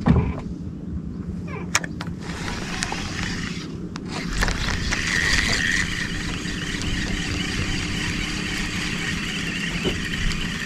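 A boat's motor humming steadily, with a rushing hiss joining about four seconds in.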